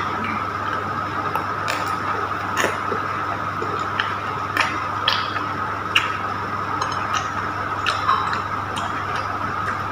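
Eating sounds: a metal spoon clicking against a glass bowl at irregular intervals, about once a second, with chewing of fried spring rolls, over a steady background hum.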